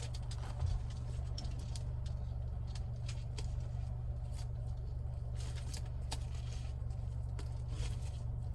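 Scattered light clicks and rustling as a small handbag and its detachable shoulder strap are handled, over a steady low hum.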